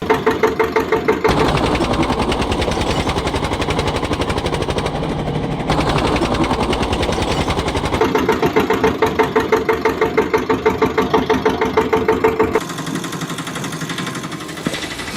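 Tractor engine sound chugging in a steady beat of roughly six pulses a second. Its tone changes abruptly several times, as if separate engine recordings are cut together, and it turns quieter near the end.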